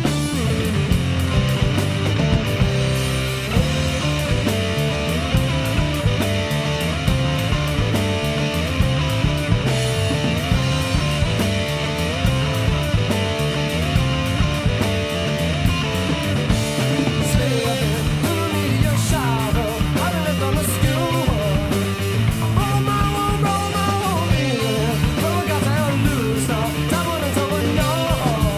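Rock band recording playing: drums, bass and electric guitar in a steady beat. A little past the middle a higher melodic line comes in, wavering in pitch.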